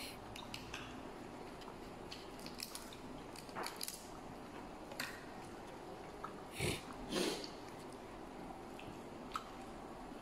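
Faint crackling and clicking of steamed shellfish shells being picked apart by hand, with a few louder short noises about a third and two-thirds of the way in.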